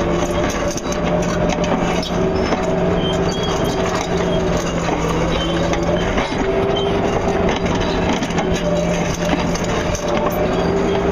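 Caterpillar 336E excavator at work: the diesel engine runs steadily under a hydraulic whine that dips and rises in pitch, with rock and dirt knocking and scraping in the bucket.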